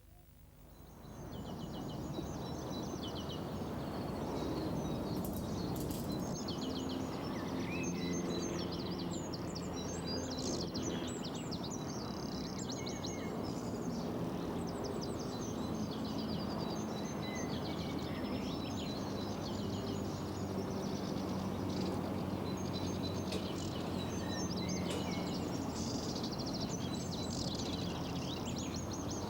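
Small birds chirping and singing again and again over a steady outdoor background noise with a faint low hum; the sound fades in over the first couple of seconds.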